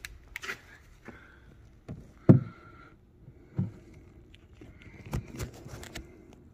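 Handling noises: plastic sheeting rustling and a few scattered knocks and bumps, the loudest a single thump a little over two seconds in.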